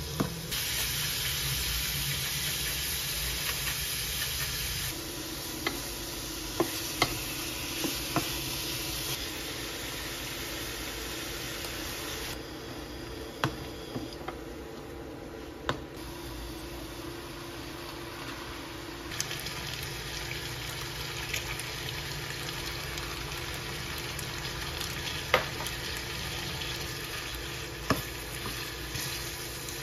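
Shrimp sizzling in a stainless-steel frying pan while a wooden spoon stirs them, with scattered sharp knocks of the spoon against the pan.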